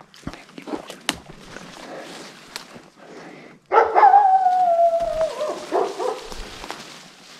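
Brush rustling and steps through forest undergrowth, then about halfway through a loud single howl: one long note sliding slowly down in pitch, followed by rustling again.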